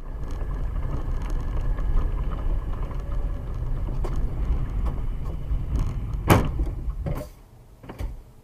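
Car driving, heard through a dashcam: steady low road and engine rumble with a few light clicks, then a single sharp bang about six seconds in and two lighter knocks after it, as the rumble dies away.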